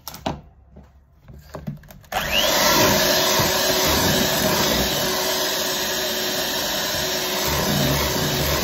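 Oster electric hand mixer running steadily at high speed, its twin beaters whipping eggs and sugar. A few light knocks come first, then the mixer starts abruptly about two seconds in.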